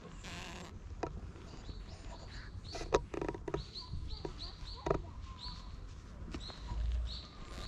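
A small bird chirping, short high notes repeated in quick runs, with two sharp clicks and a brief low rumble near the end.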